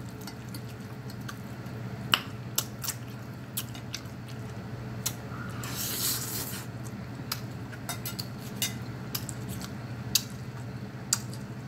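Close-up eating sounds: scattered wet clicks of chewing and lip smacks with a fork touching the plate, and a slurp of ramen noodles from the fork about six seconds in. A low steady hum runs underneath.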